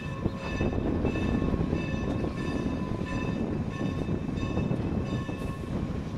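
1906-built Norfolk & Western 4-8-0 steam locomotive No. 475 moving slowly in reverse, tender first, with a dense steady rumble and hiss. High ringing tones come and go over it in short pulses and fade out near the end.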